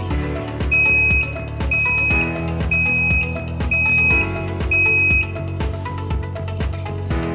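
Background music with a steady beat. Over it, a high electronic beep sounds five times about a second apart, then stops.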